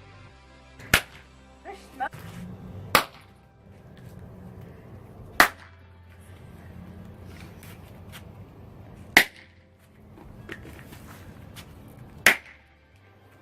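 Sharp pops of small New Year's novelty poppers going off one at a time, five loud cracks a few seconds apart with a couple of smaller ones between the first two.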